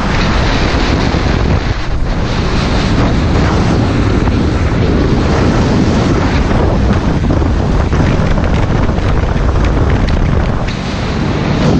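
Loud, steady wind buffeting the microphone, with wheel and road roar, as a street luge runs downhill at speed.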